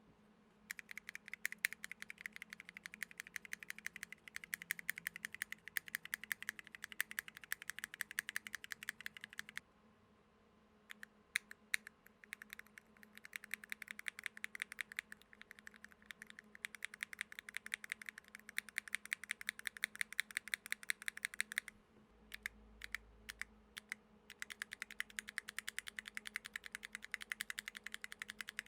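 Typing sound test on a mechanical keyboard fitted with Akko CS switches lubed with Vaseline. Fast runs of key clacks, with short pauses about ten seconds in and again a little past twenty seconds.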